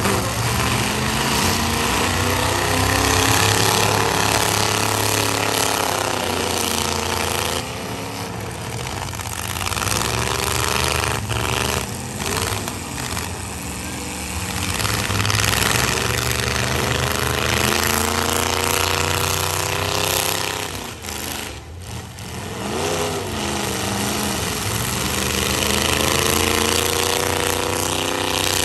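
Several demolition-derby pickup truck engines revving hard and running at high revs together, their pitch rising and falling as the trucks accelerate and back up. A few crashes of trucks ramming each other can be heard about midway and again later.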